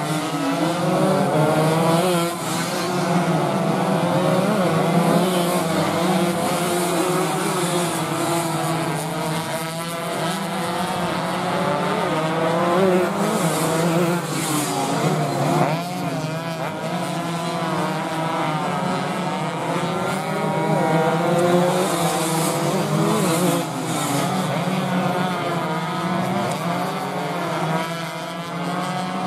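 Several two-stroke 125 cc underbone racing motorcycles revving hard, their engine notes overlapping as they rise and fall through acceleration and passes.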